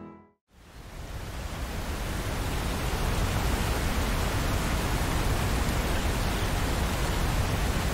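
Steady rain falling, an even hiss that fades in over the first two seconds or so after a brief moment of silence.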